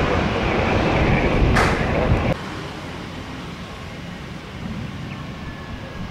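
Jet airliner engines running loud, a steady high whine over heavy rushing noise, which drops off abruptly about two seconds in to a quieter, distant engine hum with a faint whine sinking slowly in pitch.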